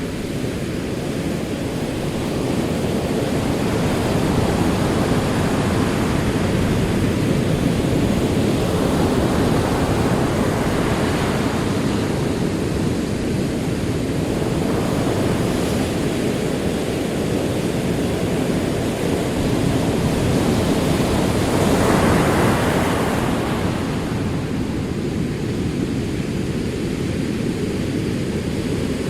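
Ocean surf: a steady deep rush of rolling waves that swells and fades slowly, with the biggest wave washing in about three quarters of the way through.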